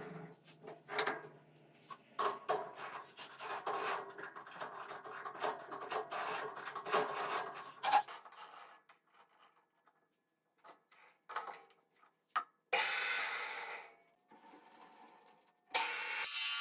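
Hand work on a stopped metal lathe: a long run of small metallic clicks, knocks and scraping, then a quiet spell with a few taps. Near the end the lathe starts running steadily again.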